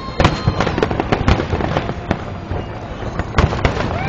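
Fireworks display: shells bursting in an uneven run of sharp bangs and crackles, several a second, with heavier reports about a third of a second in, about a second in and near three and a half seconds.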